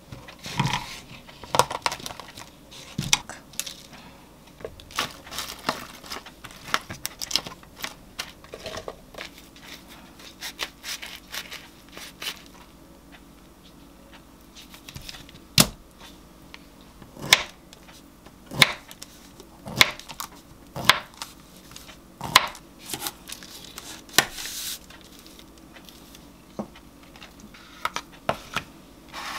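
Food-prep handling noise at a kitchen counter: irregular sharp clicks and knocks of plastic containers and utensils, louder and more frequent in the second half, with a brief rustle of plastic packaging.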